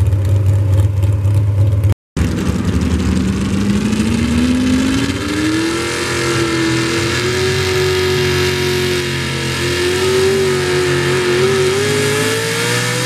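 Pulling-truck engine at full throttle hauling a weight sled, with a heavy low rumble. After a sudden cut, a second pickup's engine winds up in pitch over a few seconds, holds at high revs, and climbs again near the end as it pulls the sled down the track.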